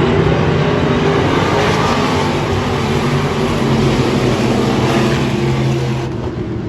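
IMCA stock cars' V8 engines running hard in a pack on a dirt oval, loud and fading somewhat near the end as the cars move away.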